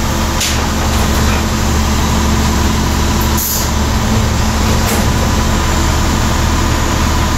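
AEG diesel multiple unit's diesel engine idling steadily at a standstill, with a brief high hiss about three and a half seconds in.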